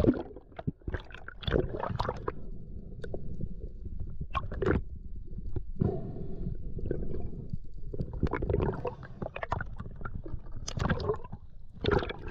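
Muffled underwater rumble and gurgling of water moving past a camera in its housing, broken by irregular swishes as a freediver kicks with long fins.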